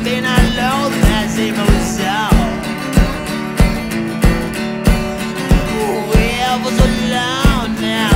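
Blues-rock music from a band, with a steady kick-drum beat about one and a half times a second and guitar.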